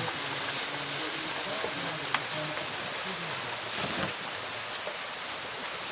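Steady rushing of water on a rain-soaked hillside, with one sharp click about two seconds in.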